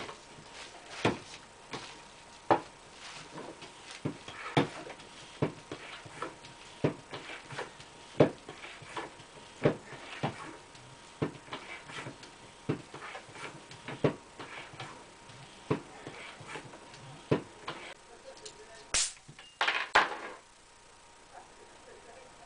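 A series of sharp clicks and knocks at irregular intervals, about one a second, then two short noisy bursts near the end, the second lasting about half a second.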